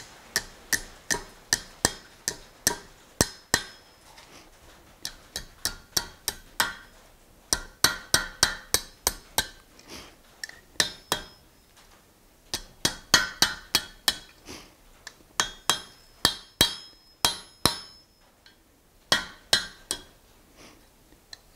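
Hand hammer striking a red-hot steel bar over the anvil horn, bending it into a hook: runs of quick blows, about two a second, each with a bright metallic ring, broken by short pauses.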